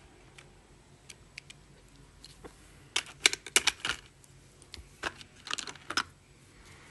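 Geometry instruments in a Camlin tin geometry box clicking and clattering against the plastic tray and metal case as they are handled: a few light clicks, then two quick bursts of clatter about three and five seconds in.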